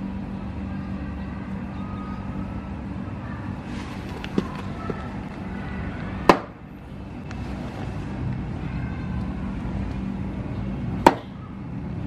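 A cheap folding knife thrown into an old wooden plank: two sharp thuds about five seconds apart, and after the second the blade is stuck in the wood.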